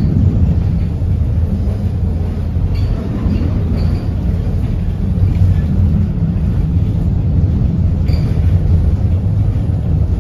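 Konstal 805Na tram car running along the track, heard from inside the passenger saloon: a steady low rumble of the running gear on the rails.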